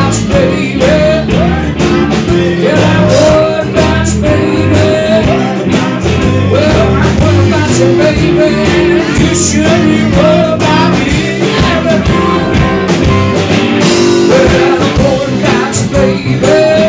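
Live blues band playing: electric guitars and drums, loud and continuous.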